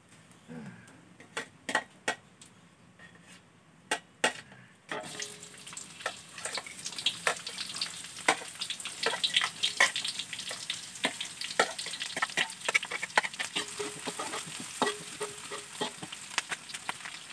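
Sliced red chilli, shallots and garlic scraped from a plate into hot oil in a wok. A few spoon clinks first, then from about five seconds in the oil sizzles steadily while a metal spatula clinks and scrapes against the wok as the spices are stirred.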